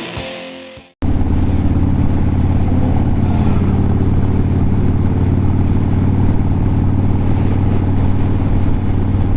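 Distorted guitar music fading out, then an abrupt cut about a second in to a motorcycle engine running steadily at a constant speed.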